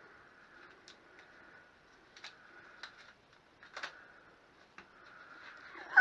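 Faint, scattered clicks and rustles of hands unwinding the wrap and padding from a freshly bent steel bar, about five light ticks spread over several seconds, over a weak steady hum.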